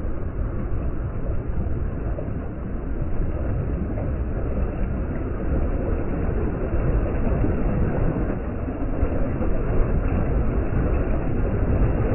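Wind buffeting the microphone over sea waves breaking and washing in shallow water: a steady, loud, low rumbling noise.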